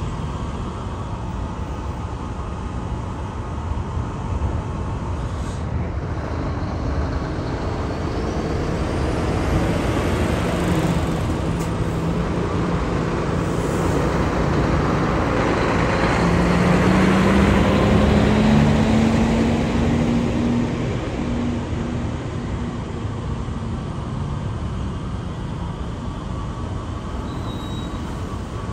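Heavy diesel trucks (an Isuzu Giga, a Hino Profia and a Mitsubishi Fuso Super Great) drive off a car ferry's ramp one after another, their engines running steadily. The sound swells past the middle as a truck pulls away close by, its engine note rising as it accelerates.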